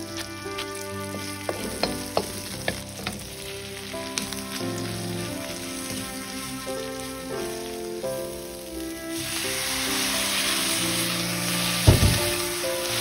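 Purple cabbage stir-frying in a wok, with sharp clacks from the wooden spatula in the first few seconds. From about nine seconds in, a loud sizzling hiss rises as pasta cooking water hits the hot pan, with a sharp burst near the end.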